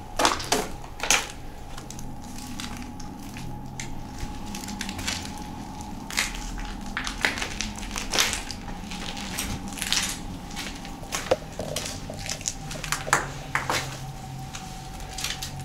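Footsteps crunching and cracking over litter and rubble: an irregular run of crunches as plastic bottles, glass and debris are trodden on.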